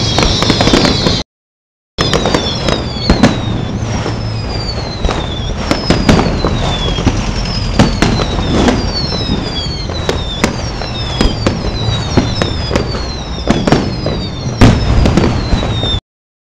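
Aerial fireworks display: a fast, uneven run of bangs and crackles from bursting shells, with repeated short whistles that fall in pitch. The sound cuts out completely for under a second about a second in and again near the end.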